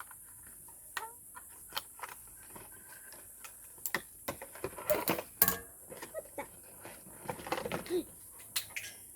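Small plastic toy pieces being handled: irregular light clicks and taps, busiest and loudest about five seconds in.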